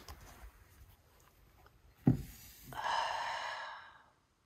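A sudden thump about two seconds in, followed by a breathy rush of noise lasting about a second, like an exhale or sigh, over faint rustling.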